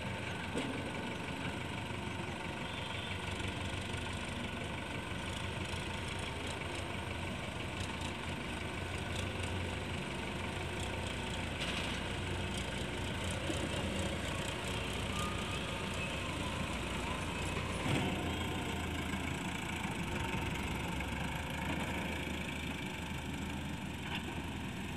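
Sonalika DI 750 tractor's diesel engine running steadily, with a couple of brief knocks. Its low hum firms up near the end as the tractor pulls away with the trolley.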